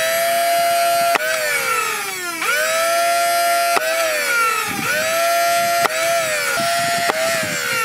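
Worker Hurricane flywheel blaster, run on an 11.1 V LiPo, spinning its flywheel motors up with a rising whine. The whine holds a steady pitch while darts fire with sharp clicks, then winds down with a falling whine. This happens three times.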